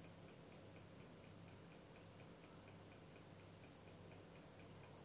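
Near silence: room tone with a faint steady hum and a faint, even ticking several times a second.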